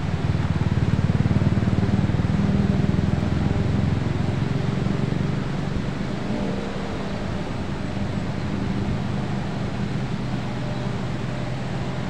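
Steady rushing of water pouring over a low weir, with a heavy low rumble under it that is louder in the first half.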